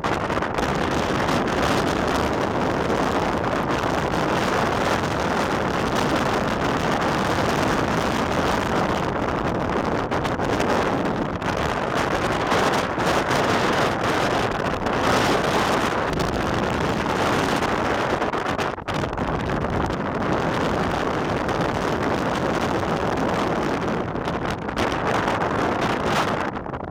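Strong windstorm wind buffeting the microphone in a steady, heavy rush, over rough lake water, easing briefly about two-thirds of the way through.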